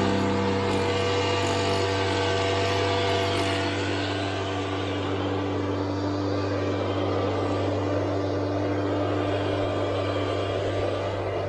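Backpack mist duster blower's small two-stroke engine running steadily, with the rush of air from its discharge pipe as it blows granular fertilizer. The sound eases slightly about four seconds in.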